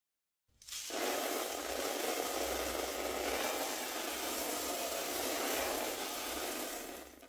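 Toilet flushing: a steady, loud rush of water that starts abruptly about half a second in and cuts off just at the end.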